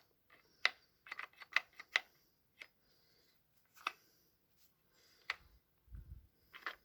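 Plastic housing parts of a DeWalt DCH273 SDS hammer drill clicking and tapping together as the housing halves are fitted on by hand. There is a quick run of sharp clicks about a second in, then single clicks every second or so, and a dull knock near the end.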